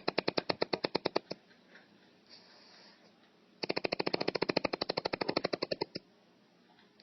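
A sleeping man snoring, each breath a rapid rattling flutter of about fifteen pulses a second. One snore stops about a second in, and a longer one starts near the middle and lasts about two seconds.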